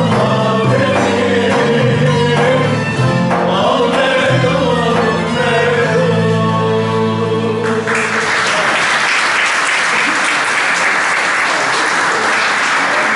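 Turkish folk ensemble of bağlamas (long-necked saz) playing with singing, ending about eight seconds in, when audience applause takes over.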